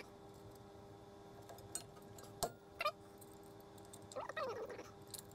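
Faint metallic clicks of pliers and brake-shoe return springs being worked onto a drum brake's shoes, a few scattered clicks in all. About four seconds in there is a brief whine-like sound that rises and falls in pitch.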